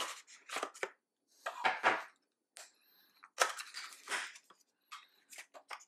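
Small white paperboard box being pried and torn open by hand: crackling, scraping rustles in several bursts, then a few short clicks near the end.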